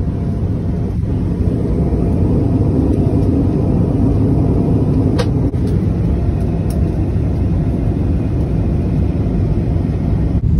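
Steady low rumble of a vehicle in motion, heard from inside it.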